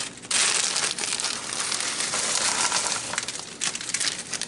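Plastic bag of corn crinkling as it is handled and shaken out over a plastic mixing bowl, with the kernels falling in.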